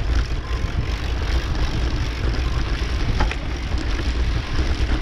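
Wind buffeting a moving GoPro's microphone as a mountain bike rolls over a dirt trail: a steady low rumble with tyre noise from the gravelly dirt and a faint tick or rattle about three seconds in.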